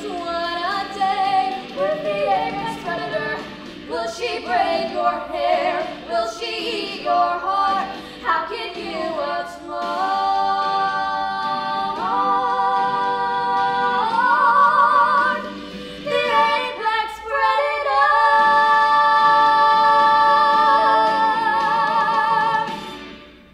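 Two girls singing a musical-theatre duet in harmony, building to the song's ending: the phrases give way to long held notes, with a step up in pitch about halfway and a final high note held for about four seconds before it fades out.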